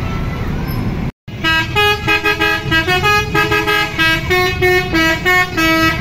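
Basuri telolet horn on a tour bus playing a quick tune. Short multi-note chords change pitch several times a second and start about a second in, over road traffic noise.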